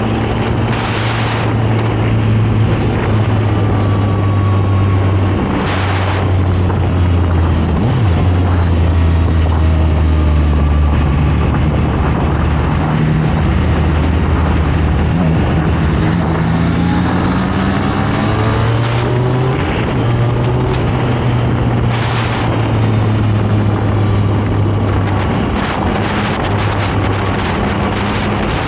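Zontes 703RR sport motorcycle's inline three-cylinder engine running under way, a steady drone with wind on the microphone; its pitch climbs several times in the middle as the bike accelerates.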